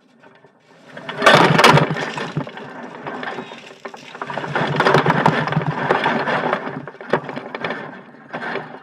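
A shed being pulled down by a wrecker: a long stretch of cracking, splintering and crashing that swells twice, over the tow truck's running engine.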